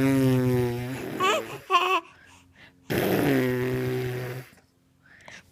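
Two long mouth-made fart noises, lips buzzing in a steady low raspberry, each lasting about a second and a half, with a short voice sound between them.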